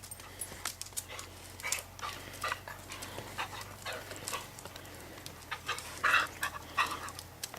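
Australian cattle dogs panting, among scattered short clicks and brief noises; the loudest comes about six seconds in.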